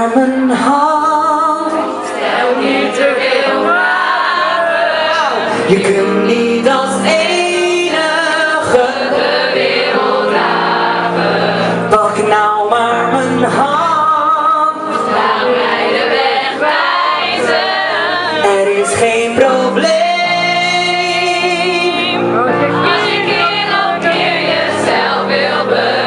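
Live vocal music: men's and women's voices singing a song together in choir-like harmony over sustained instrumental accompaniment.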